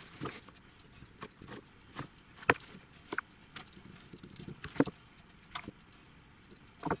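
Irregular light clicks and taps of hands handling a clear plastic box of loose scenery grass fibres at the edge of a model railway module, with two louder knocks about two and a half and almost five seconds in.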